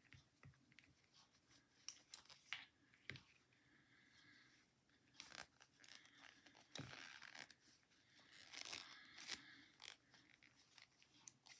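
Faint clicks of knitting needles and rustling of yarn, scattered and irregular, as stitches are moved onto double-pointed needles.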